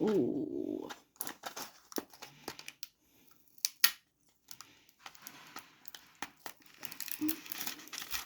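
Small cardboard LEGO minifigure box being handled and opened: scattered clicks and taps, one sharp click about four seconds in, then denser crinkling and tearing of the packaging from about five seconds on.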